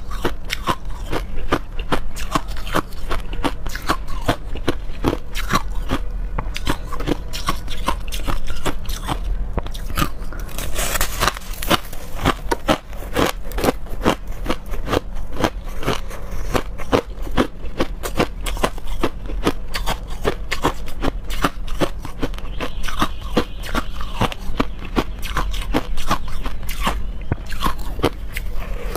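Frosty crushed ice being bitten and chewed: a dense, continuous run of crisp cracks and crunches, with a louder hissing crunch lasting about a second around eleven seconds in.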